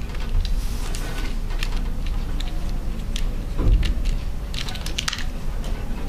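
Scattered small clicks and ticks of a screwdriver turning tiny screws into a laptop hard drive's metal caddy, with handling noise and one louder thump a little past halfway.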